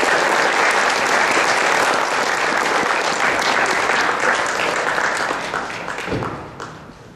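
Audience applauding: a dense, steady clatter of many hands clapping that fades away over the last couple of seconds.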